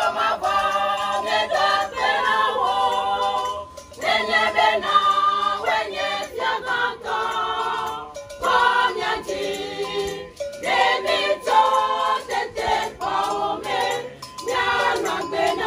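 A group of people singing a church song together, in sung phrases of a few seconds with short breaks between them.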